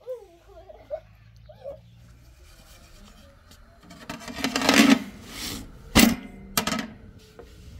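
Flat stick scraping and tapping on a domed metal griddle as thin flatbread is turned: a rasping scrape a little past the middle, then two sharp taps about half a second apart. A child's voice is faint near the start.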